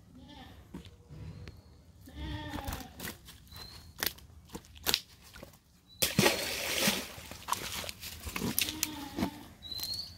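Fish being taken out of a nylon cast net on grass, with clicks and a loud burst of rustling and flapping about six seconds in. A few short animal calls are heard as well.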